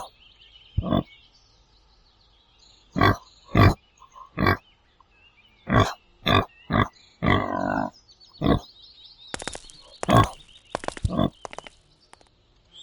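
Pig grunting: a series of short grunts a second or so apart, with one longer, drawn-out grunt a little past the middle.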